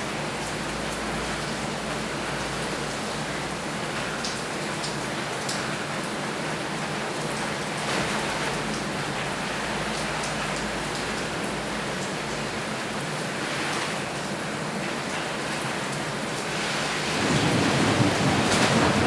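Water from an enclosure shower falling like heavy rain: a steady hiss of spray and drops hitting surfaces, growing louder and fuller near the end.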